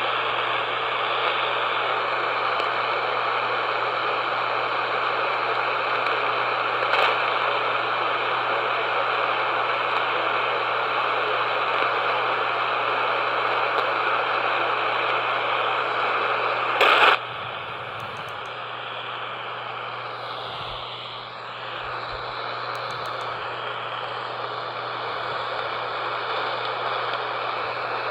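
AM radio static from a weak, barely audible station: a steady hiss with a low hum under it. One brief loud crackle comes about 17 seconds in, after which the hiss is quieter.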